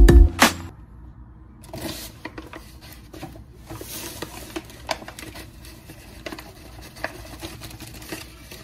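A drum-backed music track cuts off in the first moment. Then come quiet rustling and light tapping as dry self-rising cornmeal is scooped with a measuring cup and poured into a glass mixing bowl, with a couple of brief louder pours.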